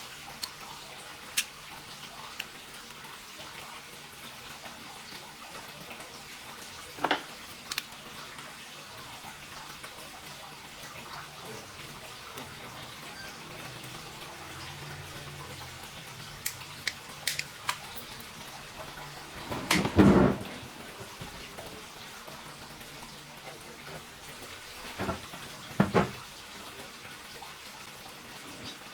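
Scattered light clicks and short knocks over a steady background hiss, with a louder knock about twenty seconds in and a pair near the end.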